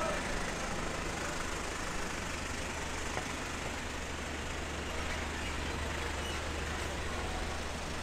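Urban traffic ambience: a steady low engine hum from road vehicles over the general noise of the roadway, with faint voices of passers-by.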